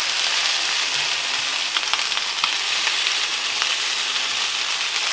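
Chicken pieces frying in oil in a very hot pan, a steady sizzle with small scattered pops as they brown.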